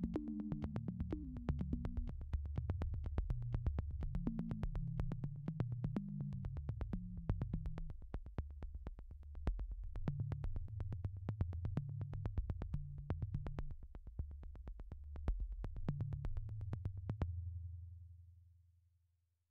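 Background synthesizer music: a low, stepping bass line under a steady ticking beat of about four ticks a second, fading out near the end.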